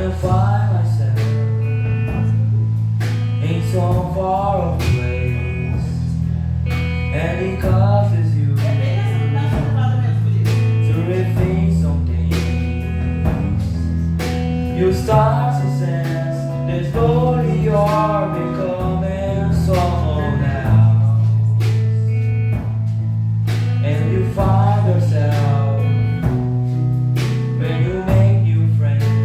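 Live band music: a singer over guitar, held bass notes that change every second or two, and a steady beat.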